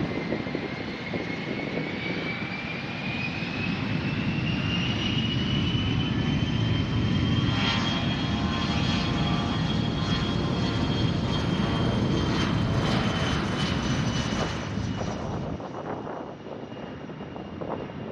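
Canadair CRJ-200 regional jet's turbofans at takeoff power: a whine that rises in pitch over the first several seconds, then holds steady, over jet noise that builds to its loudest in the middle and fades near the end.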